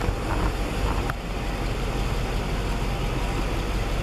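Cadillac car engine idling, a steady low running noise, with a short click about a second in.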